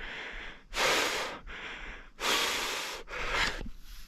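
A man breathing heavily close to the microphone: about three deep breaths in and out, alternating louder and softer.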